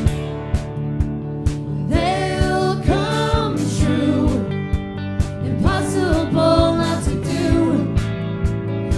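A live pop-rock band playing with drums and electric guitar. The drums keep a steady beat of about two hits a second, and a woman's lead vocal comes in about two seconds in.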